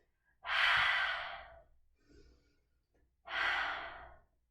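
A woman breathing out hard twice through an open mouth, each exhale about a second long, starting sharply and fading away. These are open-mouthed exhalations to expel energy.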